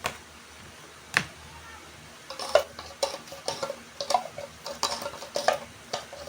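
A spoon stirring fruit salad in a bowl: two sharp knocks near the start, then from about two seconds in repeated clinks and scrapes against the bowl, roughly twice a second, some with a short ring.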